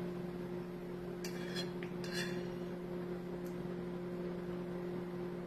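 A fork clinking a few times against a plate, about one to two seconds in, with one more faint clink later, over a steady low hum.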